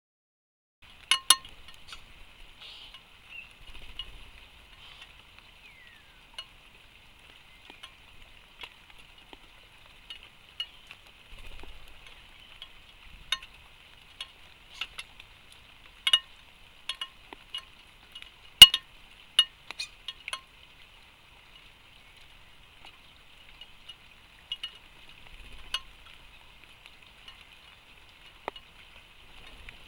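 Irregular sharp clicks and taps of birds pecking seed on a wooden tray feeder, the loudest a little past halfway, over a steady faint high hiss.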